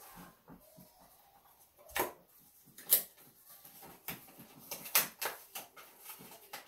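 Cardboard mailing box being worked open by hand: an irregular run of sharp clicks, scrapes and rustles, with the loudest snaps about two, three and five seconds in.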